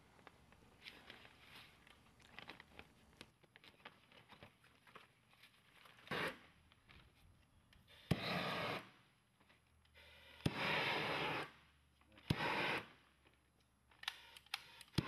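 Propane shrink-wrap heat gun fired in short bursts, each a rushing blast that most often starts with a sharp click: four bursts, the longest about a second, from about six seconds in, then a steady run beginning at the very end as the film is heat-sealed around the perimeter band. Before the bursts, faint crackling and scraping of plastic shrink film being handled.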